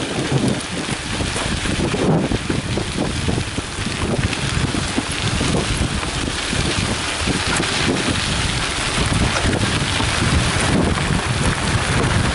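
Wind rushing over the microphone of a camera riding on a moving mountain bike, mixed with the steady rumble and crackle of knobby tyres rolling on a gravel road.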